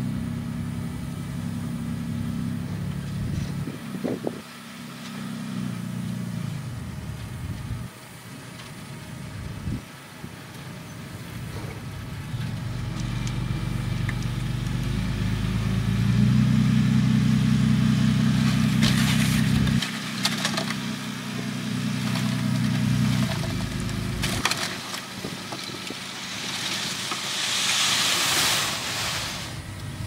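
Diesel dump truck engine running and working harder as the loaded truck reverses over loose dirt, loudest about halfway through. Near the end comes a rushing hiss as the tipper bed is raised and the load of dirt pours out.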